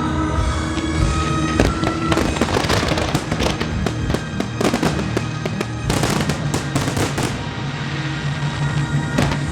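Display fireworks going off in quick succession, a dense run of bangs and crackles that comes in two thicker volleys, over a song playing along with the show.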